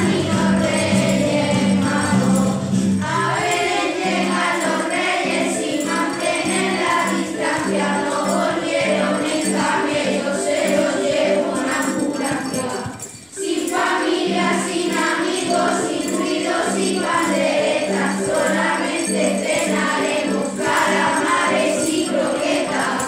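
Children's choir singing a Spanish Christmas carol (villancico) with instrumental accompaniment; the music drops away for a moment a little past halfway, then carries on.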